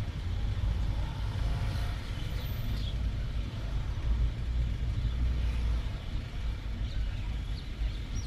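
Steady low rumble of car and road traffic, heard from inside a car's cabin in slow traffic.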